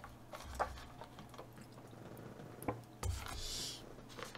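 Faint sounds of a burger being eaten: quiet chewing with a few soft mouth clicks, and a short stretch of soft noise about three seconds in.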